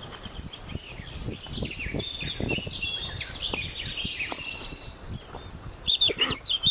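Several small birds chirping and twittering together, with many quick, overlapping falling notes, growing louder and denser toward the end.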